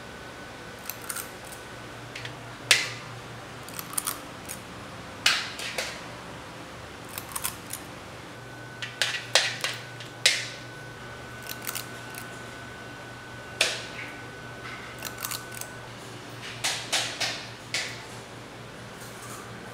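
A metal scoop clinking and scraping against a stainless steel kettle as thick rice batter is scooped out. Sharp clinks come every second or two, some in quick clusters, over a steady low hum.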